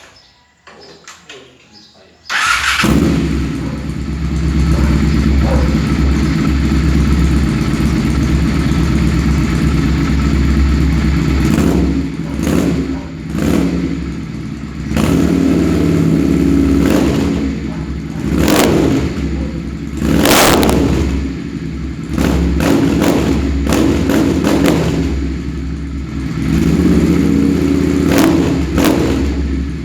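Motorcycle engine breathing through a pair of used aftermarket exhausts. It starts about two seconds in, then idles with a dozen or so short blips of the throttle.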